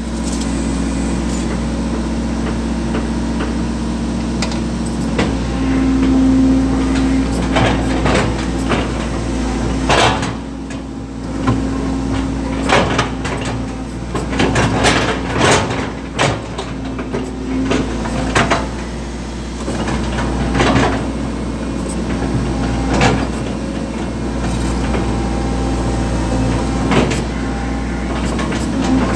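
Hydraulic excavator engine running steadily, heard from inside the cab, with repeated knocks and clunks as the bucket handles and sets down concrete drain covers, most of them in the middle stretch.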